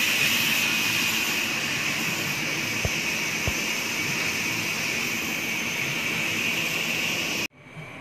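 A steady whooshing machine noise, like a large motor or fan running without pause. Two soft low thumps come close together about three seconds in, and the noise stops abruptly near the end.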